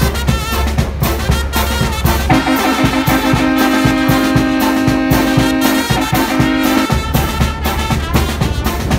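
Brass band music with a steady beat and a deep bass line. About two seconds in the brass holds a long chord for several seconds while the bass drops out; the bass and beat return near the end.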